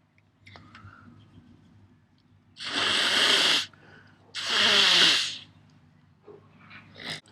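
Two long, forceful, hissing blasts of breath from a person in an allergy sneezing fit, each about a second long, around three and five seconds in. A short sharp burst follows near the end.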